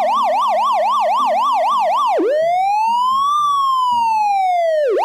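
Electronic emergency-vehicle siren: a fast yelp warbling about five times a second, switching after about two seconds to a slow wail that rises and falls, over a faint low tune.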